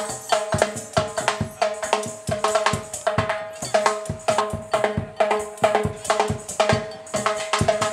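Drum-led percussion music with a fast, steady beat and ringing pitched drum tones.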